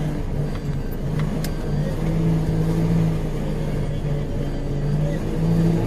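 Off-road 4x4 vehicle's engine running under load, its revs shifting up and down.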